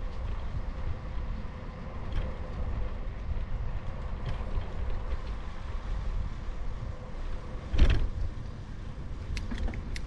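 Wind buffeting a moving GoPro's microphone, over a steady low road rumble, with one sharp loud bump a little under eight seconds in.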